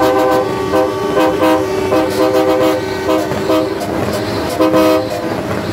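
Truck horns honking in a run of short, repeated blasts, several pitches sounding together at once.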